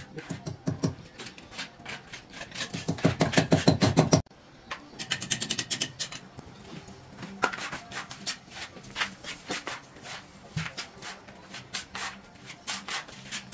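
Hand tool scraping and rubbing wet sand-and-cement mortar on a brick corner, in fast, even strokes. It breaks off abruptly about four seconds in, then resumes in a looser, irregular rhythm.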